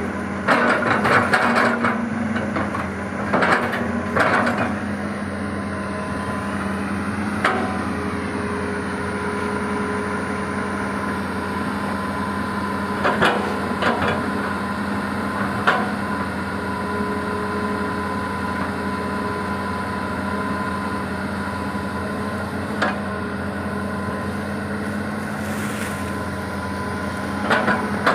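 Excavator's diesel engine running steadily while it works, with occasional sharp knocks and clanks, several close together in the first few seconds.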